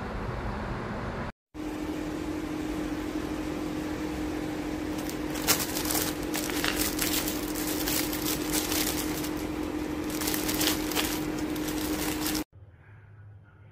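Clear plastic film wrapping around a plastic storage shelf crinkling and rustling as it is handled, with many quick crackles in the middle stretch, over a steady hum. The sound drops out briefly about a second and a half in and stops abruptly near the end.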